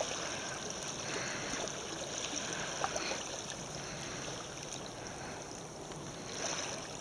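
Small, gentle sea waves lapping at a sandy shoreline: a steady soft wash of water, with a couple of faint clicks.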